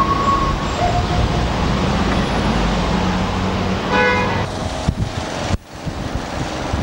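City street traffic noise with a car horn sounding briefly about four seconds in. The sound drops off abruptly near the end, then steady traffic noise resumes.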